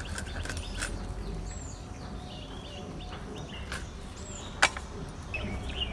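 A few sharp taps and clicks from a snakehead fish being cut on a boti blade and its pieces set into a steel bowl, the loudest about four and a half seconds in. Small birds chirp now and then.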